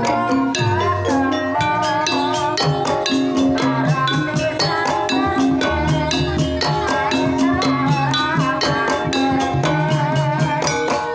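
Live Banyumasan gamelan music for tayub: kendang hand drums beat a busy rhythm over ringing bronze gongs and metallophones, with a wavering melody line above.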